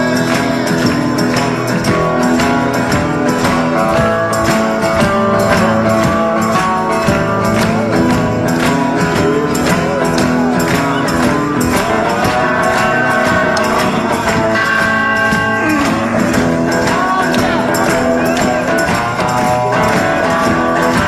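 Music with a steady beat and held notes throughout.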